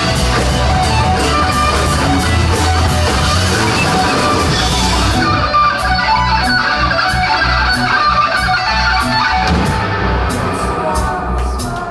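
Live rock band playing loud, amplified through a club PA and heard from the audience: electric guitars, bass and drums. About five seconds in the dense wash thins, leaving guitar over a steady, evenly ticking beat.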